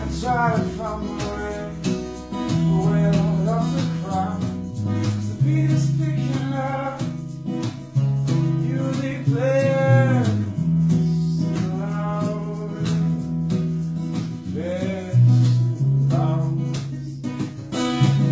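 Live soul-blues jam: a singer's melody over strummed guitar and held low bass notes.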